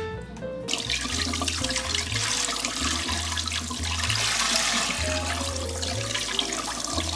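Kitchen tap running onto pork in a steel bowl in a stainless steel sink, water splashing as the meat is rinsed by hand. It starts under a second in.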